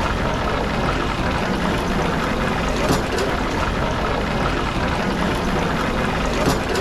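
Deep-frying oil bubbling and sizzling steadily in a stockpot on a gas burner, the oil at about 190 °C for the final crisping of a pig's head. Sharp metal clanks at about three seconds and again near the end as the head is lifted out with a spider onto a steel tray.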